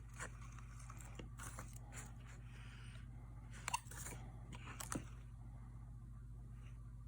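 Razor blade scoring the surface of bread dough: a series of short, scratchy cuts, the two loudest about three and three-quarter seconds and five seconds in.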